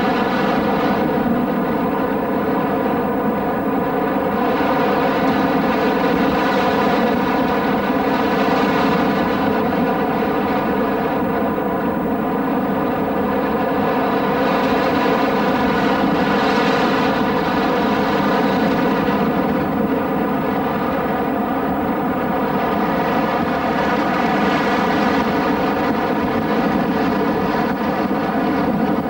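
Grumman Ag-Cat floatplane's engine and propeller running steadily at constant speed, with a hiss that swells and fades every few seconds.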